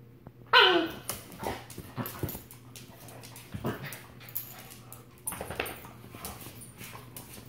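Husky puppy barking: one loud high yelp falling in pitch about half a second in, then shorter yips and whines, with scuffling clicks between.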